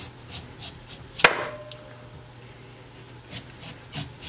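Large kitchen knife cutting the waxed skin off a rutabaga over a glass cutting board: a series of light cutting clicks, with one sharp, loud click a little over a second in that rings briefly, like the blade striking the glass.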